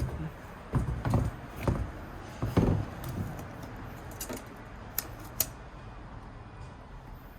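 Hands working at a stuck RAM module in an old iMac's memory bay: a run of knocks and scrapes over the first three seconds, two sharp clicks about five seconds in, then quieter fiddling. The module will not come out.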